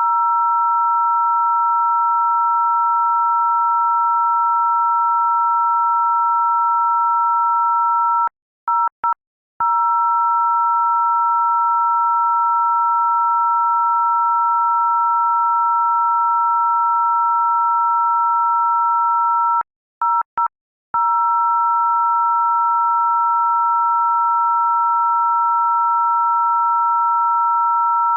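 A loud, steady electronic tone of two pitches sounding together, both in the upper-middle range. It is broken twice by a quick stutter of short gaps, once about a third of the way in and again about two thirds in.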